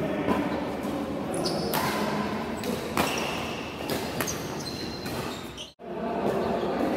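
Badminton rally in a large echoing hall: several sharp racket hits on the shuttlecock, the loudest about three seconds in, with short squeaks of shoes on the court floor.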